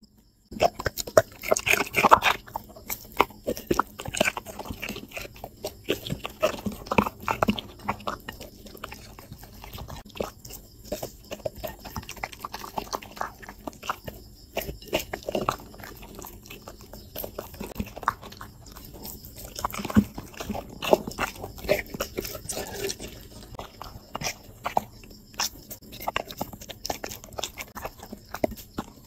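A dog chewing and crunching vegetables taken from a hand, with irregular crisp bites and mouth smacks, the loudest about two seconds in.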